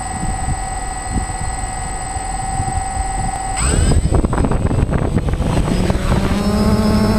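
DJI Phantom quadcopter's four motors and propellers, heard from a GoPro mounted on the drone: a steady high whine while the drone sits on the ground, then a sudden throttle-up about three and a half seconds in, with rising pitch as it lifts off, settling into a steady hum as it climbs.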